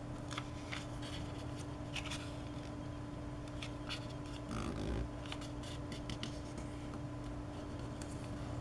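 Paper rustling and creasing as a square origami sheet is folded by hand, with short crisp crackles of the paper, over a steady background hum. A duller low knock, the loudest moment, comes about halfway through.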